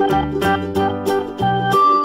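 Instrumental music with a steady beat: held pitched notes over a bass line, changing in a regular rhythm.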